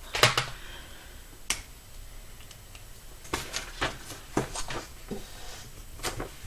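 A series of sharp snaps or clicks, about nine, irregularly spaced, the loudest just after the start and a cluster around the middle.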